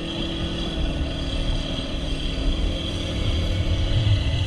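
A towing boat's engine drones steadily while the banana boat skims over the water, with water rushing and wind rumbling on the microphone, the rumble growing stronger near the end.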